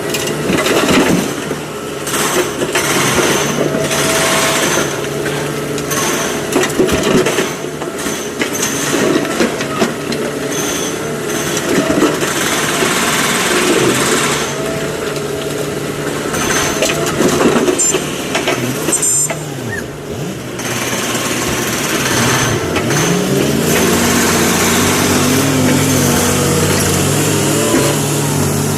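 SANY excavator's diesel engine running under load, with repeated clattering knocks of rock being dug and dropped into a truck body. The engine revs rise and hold about three-quarters of the way through.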